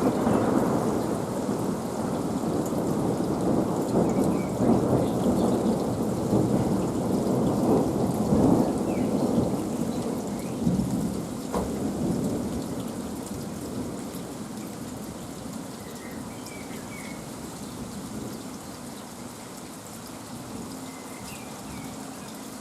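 Heavy rain pouring during a thunderstorm, with thunder rumbling loudly through the first half and dying away over the second half.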